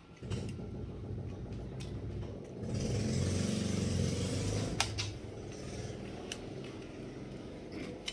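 A motor vehicle engine running steadily, louder for about two seconds in the middle, with a few sharp clicks of a knife working a bamboo pipe.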